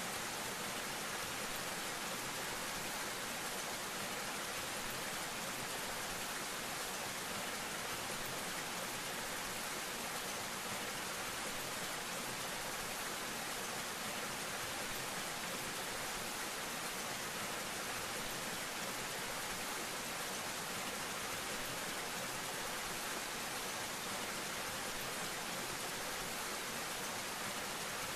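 Small waterfall pouring down a rock face and splashing into a shallow pool, heard close up: a steady, unbroken hiss of falling water, weighted to the high end.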